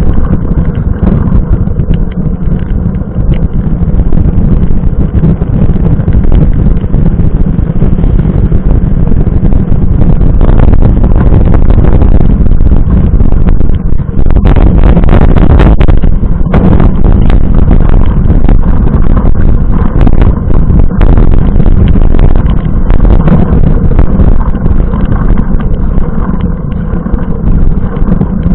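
Steady, loud wind buffeting and road rumble on the mountain bike's mounted camera as it rides a wet road in the rain, muffled, with a rougher, crackling stretch around the middle.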